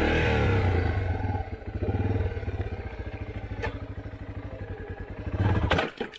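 Yamaha dirt bike engine running at low speed with throttle blips as it works over a log, with a single knock partway through. The engine cuts out suddenly near the end.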